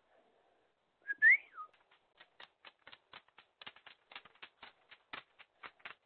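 A person's short whistle, rising and then falling in pitch, about a second in, followed by a string of light clicks, several a second.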